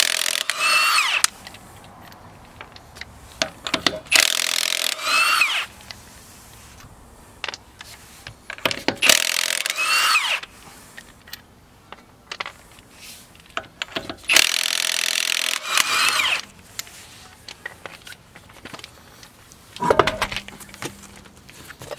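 Milwaukee M18 Fuel 3/4-inch-drive cordless impact wrench hammering lug nuts loose, in four separate bursts of about a second each. Its motor whine rises and falls within each burst.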